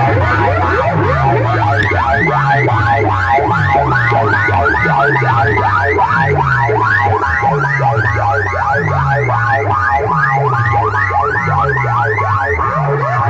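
Loud electronic siren-like effect played through a cart-mounted rig of many horn loudspeakers: a quick rising whoop repeating about three times a second over a deep bass tone that slides downward about once a second.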